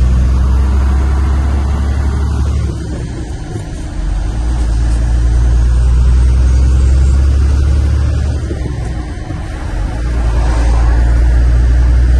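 Truck engine running under way with road noise: a steady low drone that eases off twice for a second or so and comes back.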